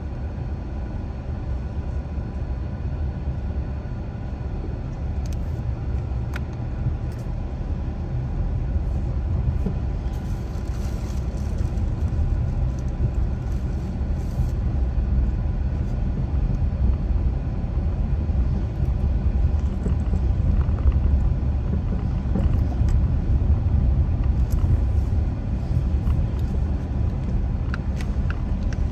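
A car driving on a road: a steady low rumble of tyre and engine noise that grows slightly louder after several seconds, with a few faint clicks.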